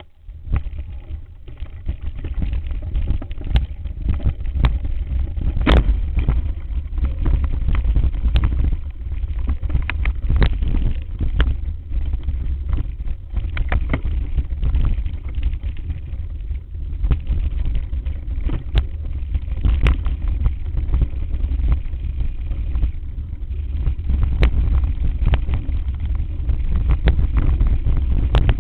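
Wind and handling rumble on the microphone of a camera riding on a mountain bike over a rough dirt singletrack, with frequent sharp knocks and rattles as the bike jolts over stones and ruts.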